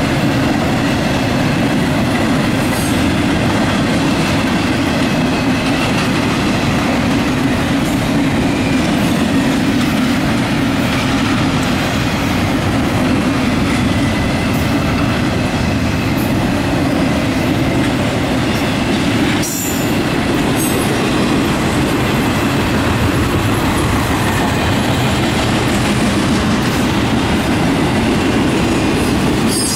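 Double-stack intermodal freight train rolling past steadily, its wheels clattering over the rail joints, with thin squeals from the wheels. The sound drops briefly about two-thirds of the way through.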